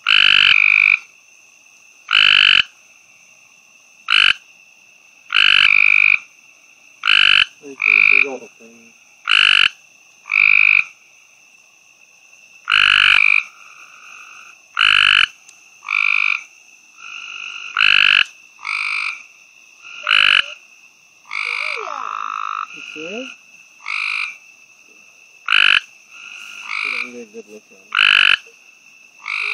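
A male gray treefrog giving its advertisement call: short, loud trills repeated every second and a half to two seconds, the throat sac puffing out with each one. A steady high-pitched hum runs underneath.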